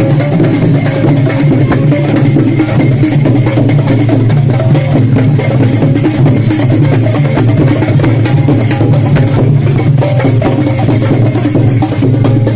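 Loud music with a steady low drone and constant percussion: drum beats, sharp wood-block-like clicks and jingles.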